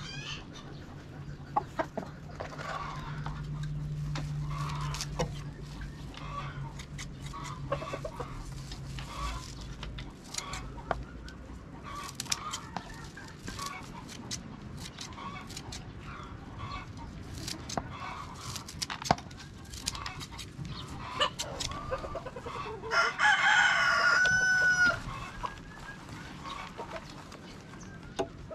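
Chickens clucking with many short clicks and calls throughout, and a rooster crowing once, loudly, for about two seconds, late on. A low hum runs under the first third.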